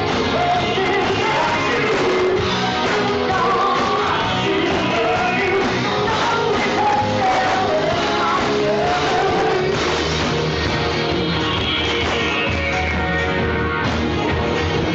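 Live rock band playing: a woman singing into a microphone over electric guitars, keyboard and drums. Her vocal drops out about ten seconds in and the band plays on.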